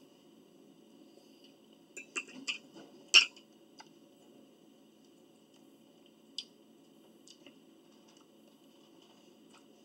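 Close mouth sounds of a person eating pizza: a cluster of sharp clicks and smacks about two seconds in, the loudest just after three seconds, then a single click a few seconds later. A low steady hum sits under them.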